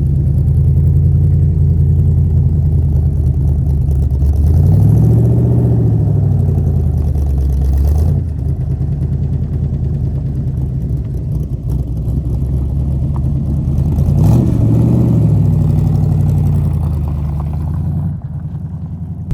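Motor vehicle engine running steadily, revving up and back down twice, about five seconds in and again about fourteen seconds in. The sound changes abruptly near the end.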